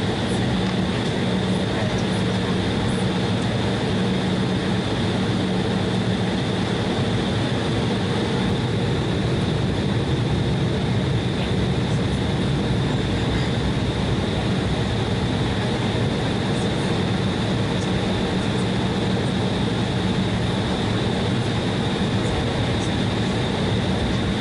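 Cabin noise inside an Embraer E175 taxiing. The General Electric CF34 turbofans are heard at taxi power as a steady rumbling hum under a constant high whine, with no change in power.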